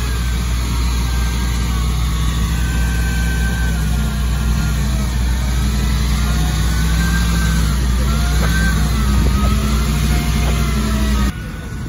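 Ferrari 250 GTO's V12 engine running at low revs, its pitch rising and falling slightly. The sound drops suddenly near the end.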